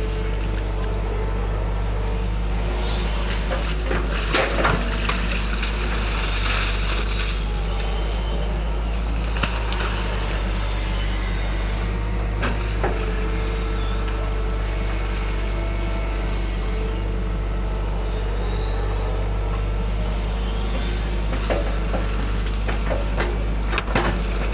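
Excavator's diesel engine running steadily under load, with a few short knocks and clatters from the bucket and arm as it works.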